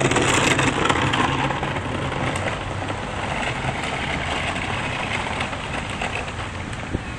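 Steady road-traffic noise with a low engine hum underneath.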